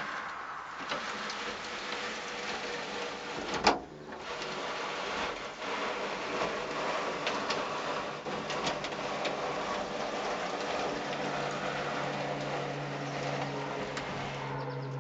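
The sliding steel sunroof of a 1974 VW Super Beetle being cranked closed, its panel and cable mechanism making a continuous rattling, scraping run along the tracks with scattered clicks. There is one sharp click a few seconds in.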